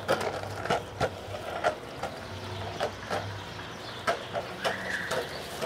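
A skateboard on Slimeball wheels rolling along a concrete sidewalk, clacking over the sidewalk joints in a series of irregular clicks. A faint low steady hum sits underneath.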